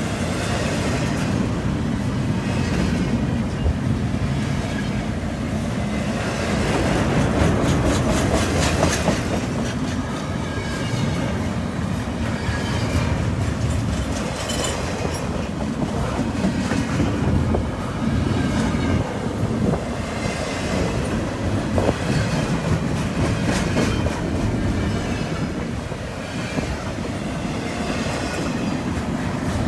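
Double-stack intermodal well cars of a freight train rolling past: a steady rumble of steel wheels on the rails with the clickety-clack of trucks passing over the track.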